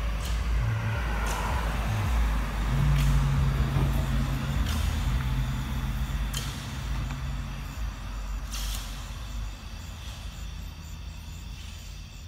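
Vossloh-Kiepe electric trolleybus passing close and pulling away: a low rumble of tyres and running gear with a steady electric hum, loudest about three seconds in and fading as it recedes. A few sharp clicks come at intervals.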